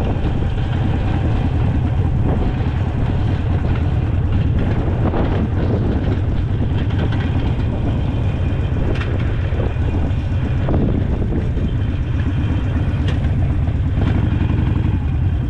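Harley-Davidson Sportster's V-twin engine running steadily as the motorcycle rides along, a continuous low rumble with no revving up or down.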